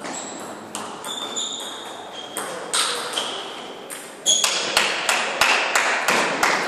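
Table tennis ball clicking off bats and table with a light ringing ping: a few scattered bounces, then from about four seconds in a fast rally, two to three hits a second.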